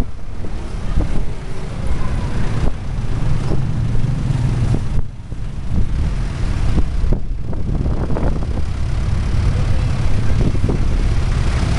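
Engine and road noise heard from a moving vehicle driving through town traffic, a steady rumble with some wind on the microphone; the rumble dips briefly about five seconds in.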